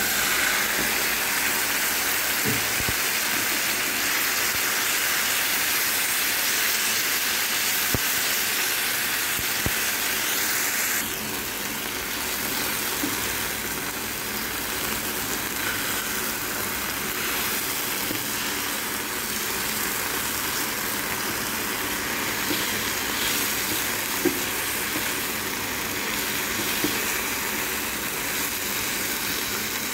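Honey-mustard-marinated chicken breast strips sizzling in hot olive oil in a nonstick frying pan, starting sharply as the meat goes in. The sizzle eases a little about eleven seconds in, with a few light taps scattered through it.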